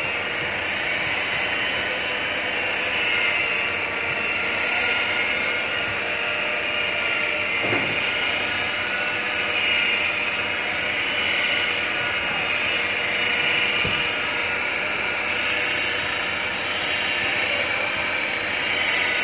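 Corded electric rotary polisher with a wool buffing pad running steadily on car paint, a continuous high-pitched whir that swells and dips slightly.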